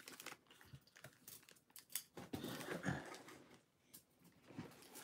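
Faint, irregular rustling and crinkling of toy packaging being handled, busiest about halfway through.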